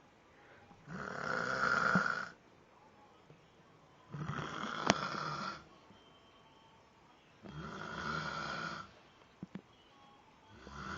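Heavy snoring: rough, rasping snores about every three seconds, each lasting over a second, three in full and a fourth starting near the end. A sharp click sounds in the middle of the second snore.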